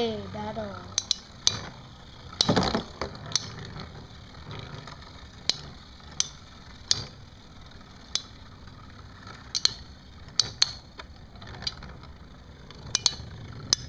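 Two Beyblade spinning tops whirring in a plastic stadium and clacking sharply against each other at irregular moments, about once a second. There is a duller knock about two and a half seconds in.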